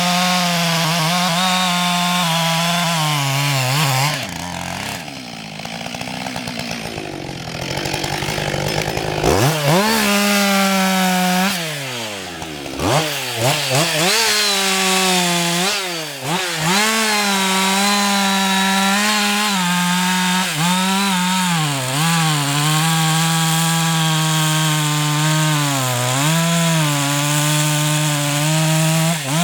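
Husqvarna 560 XP two-stroke chainsaw cutting wood at full throttle. The engine pitch sags under load again and again and climbs back. It runs lower for a few seconds around the 4 to 9 second mark, then revs sharply back up.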